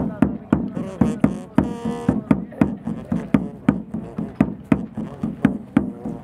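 Background music with a fast, steady percussive beat, about three strikes a second, and pitched melodic tones over it.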